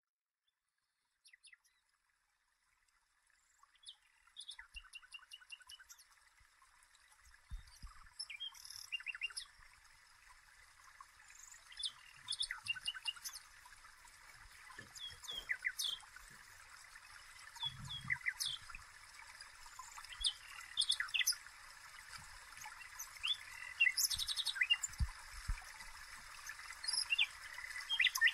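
Birds chirping and singing, starting a few seconds in and growing fuller, over a soft steady hiss. A few faint low thuds are heard now and then.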